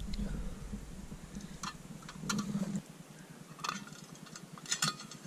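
Scattered light clinks and taps of camp cookware, a pot and mug being handled for tea, about four or five in all. A low rumble fades out about three seconds in.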